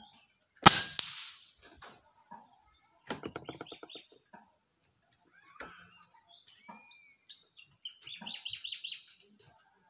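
PCP air rifle fires a single shot, a sharp crack about half a second in. Birds call in the background, with a quick run of pulsing chirps near the middle and another near the end.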